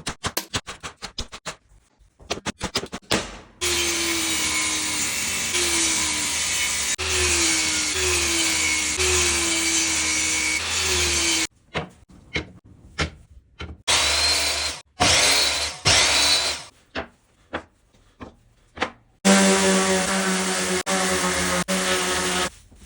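Power tools working wood. A quick run of taps comes first, then a motor runs under load for about eight seconds with its pitch dipping again and again. It then comes in short bursts, and near the end runs steadily for about three seconds.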